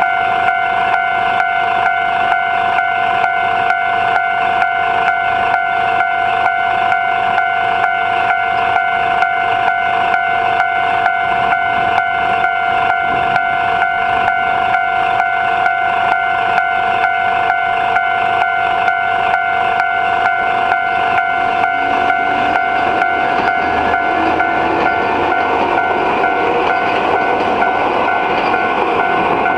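Japanese level-crossing alarm ringing steadily with evenly repeated two-tone strokes. From about two-thirds of the way in, a Nagano Electric Railway train draws near, its rail and motor noise swelling under the bell.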